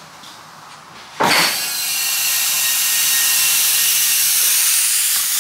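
About a second in, high-pressure compressed air (about 500 psi) bursts into a car's air-jack system through the air lance with a loud, steady hiss and a few faint whistling tones. Air is escaping at the new aluminium hard-line fittings, which are leaking.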